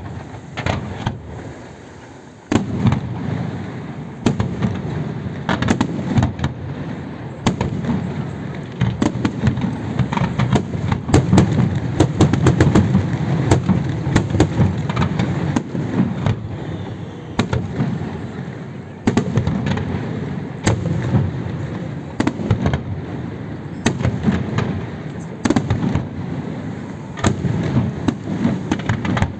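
A fireworks display in full swing: many shells bursting in quick succession, with sharp bangs over a continuous low rumble that builds to its densest in the middle and surges again a couple of times.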